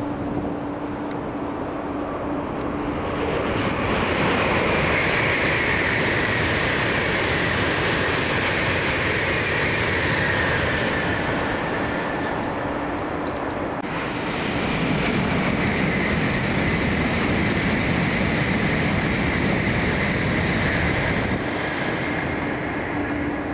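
N700-series Tokaido Shinkansen trains passing at high speed on a viaduct: a loud, steady rush of air and rolling wheels that swells about four seconds in and again midway, with a steady low hum at the start and near the end.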